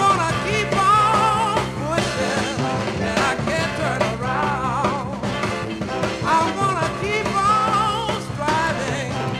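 A northern soul record playing: a lead singer with a wavering, vibrato-laden voice over a full band.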